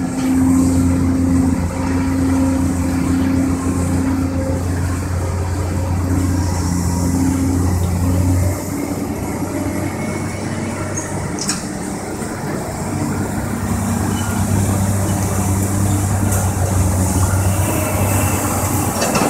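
Heavy excavator diesel engines running, a steady low drone that drops in level about halfway through and builds up again later, with a couple of short knocks.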